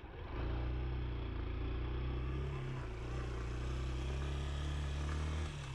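Honda XR190 dirt bike's single-cylinder four-stroke engine running steadily while riding, its note shifting briefly a little under halfway through and easing off shortly before the end.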